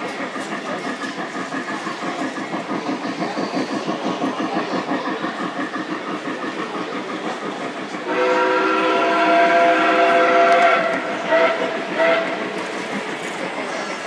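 Lionel O-gauge model trains running on the layout track with a steady rhythmic clatter. About eight seconds in, a model train's horn sounds one long chord-like blast, then two short ones.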